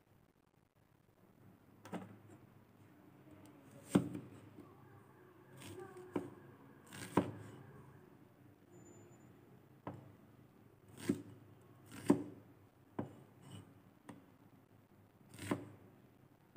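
Kitchen knife chopping an onion on a wooden cutting board: about ten sharp knocks of the blade hitting the board, irregularly spaced.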